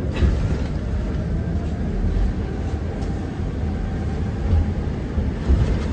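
Cabin noise of a KAMAZ-6282 electric bus on the move: a steady low rumble from the road, a faint thin whine over it, and a few brief bumps.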